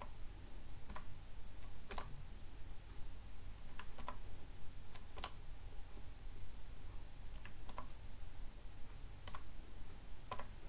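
Keystrokes on a computer keyboard, single keys pressed at irregular intervals, roughly one a second and sometimes two in quick succession, over a faint low hum.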